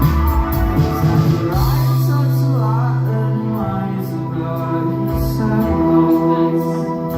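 A rock band playing live, with singing over long held bass notes and keyboard chords; the drum beat thins out about a second and a half in.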